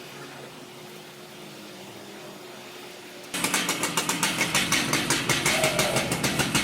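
Chainsaw engine of an Alaskan chainsaw mill comes in abruptly about halfway through and runs loud with a rapid, even pulsing beat. Before that there is only a faint steady hum.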